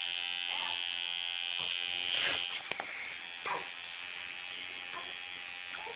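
Electric tattoo machine buzzing steadily as its needle is pressed into skin, inking a tattoo; the buzz drops a little in level about two and a half seconds in.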